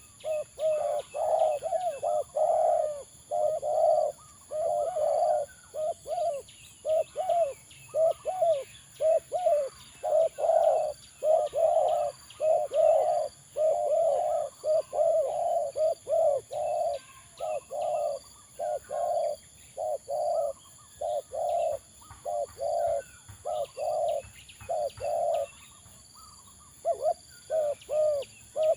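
Spotted dove (terkukur) cooing over and over in a steady string of low coos, with a short pause a little before the end. Faint high chirps of small birds sound behind it.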